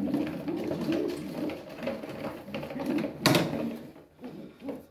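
Racing pigeons cooing in a low, continuous murmur, with one brief sharp sound about three seconds in.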